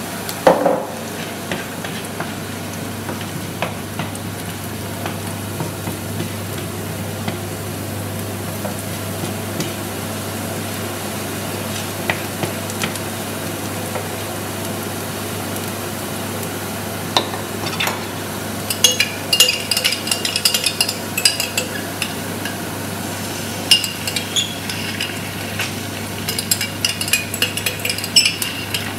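Chopped onion frying in oil in a nonstick frying pan, sizzling steadily while a spoon stirs it. In the second half come bursts of clinks and scrapes of a spoon as tomato paste is spooned into the pan.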